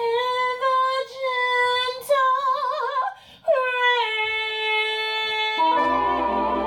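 A woman singing unaccompanied into a microphone: a few phrases with vibrato, ending on a long held note. Near the end the band comes in under her with a sustained chord.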